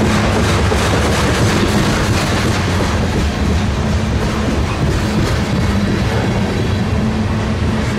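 A train rolling past close by: a steady, loud rumble of railcars with repeated wheel clicks over the rails.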